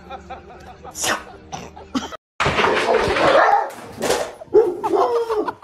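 A dog vocalizing close to the microphone: rough, noisy sounds followed near the end by a short wavering pitched call.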